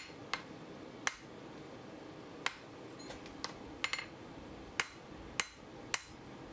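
Blacksmith's hand hammer striking red-hot steel held in tongs on an anvil: about ten sharp, irregularly spaced blows, several in quick pairs, knocking the corners off the square taper of a hardy's shank. A steady low hum runs under the blows.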